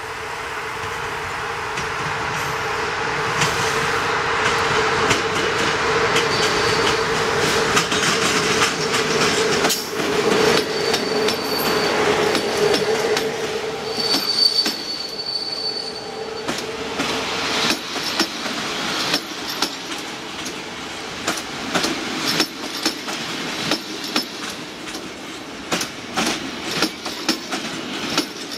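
Electric-hauled passenger train approaching and passing close by, growing louder, with a steady whine and brief high-pitched wheel squeals. Then the coaches roll past, their wheels clicking sharply over the rail joints.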